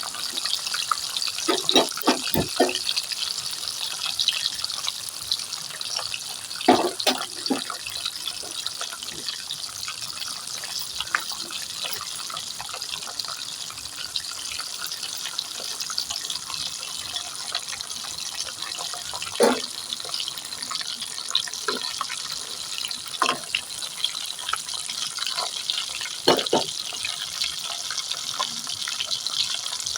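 Rohu fish heads frying in hot oil in a kadai, a steady sizzle throughout, with a few sharp clinks of a utensil against the pan.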